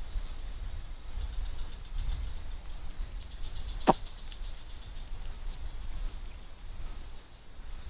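Insects chirring steadily in one thin high-pitched tone over a low rumble, with a single sharp click about four seconds in.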